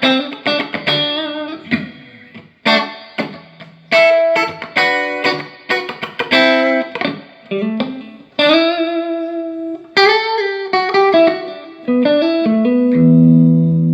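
Electric guitar played through a Peavey Classic 30 tube combo amp, now working again after its bad filter caps were replaced: a run of quick plucked notes and short chords, then a low chord held out about thirteen seconds in.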